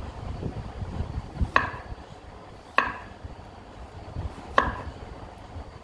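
Cleaver knocking on a wooden cutting board while slicing garlic cloves: three sharp knocks, each with a brief ring, spaced between one and two seconds apart.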